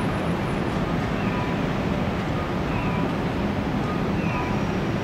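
Steady city street and traffic noise with a low hum underneath, and a faint short chirp repeating about every two seconds.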